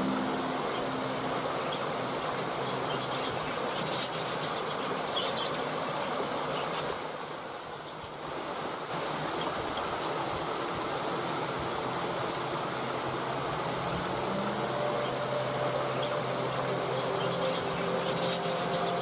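Steady rush of a waterfall, dipping briefly about halfway through, with faint short high chirps and a few soft held tones underneath.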